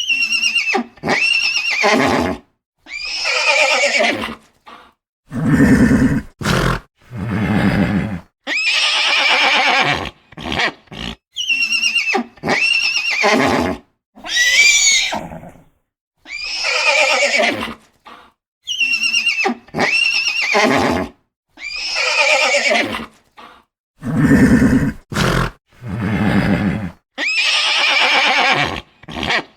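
Horses neighing and whinnying in a string of separate calls, each cut off by a sudden silent gap. Most are long, high whinnies that fall in pitch, with a few lower, deeper calls among them.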